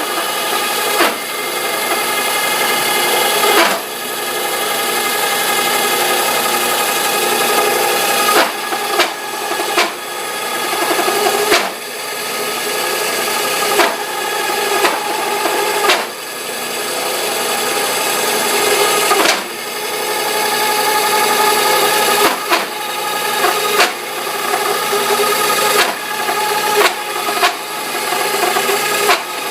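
Tabajara Candanga bench drill press, fitted with a 2 hp motor, running with its bit cutting into a workpiece in repeated feeds. The cutting noise builds for a few seconds, then drops sharply with a click, about every two to four seconds, over a steady motor hum.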